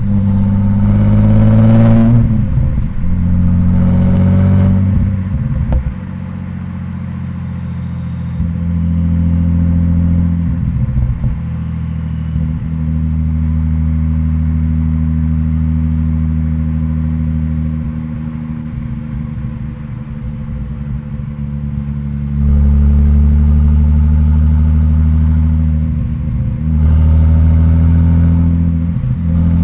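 Audi S4 B5's twin-turbo V6 cruising on light to part throttle. In the first five seconds there are two short throttle applications, each with a turbo whistle that rises and then falls away. A quieter, steady stretch off load follows, and the engine goes back under load near the end with the whistle rising again.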